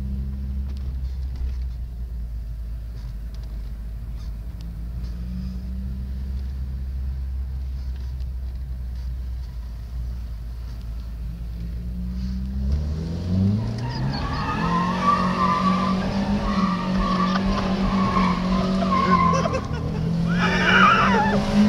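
Engine of a 200-horsepower SEAT Ibiza heard from inside the cabin while driving. For the first dozen seconds it runs steadily at a low note, then it revs up hard as the car accelerates, the note rising and held high under loud road noise. A brief, louder rush of high noise comes near the end.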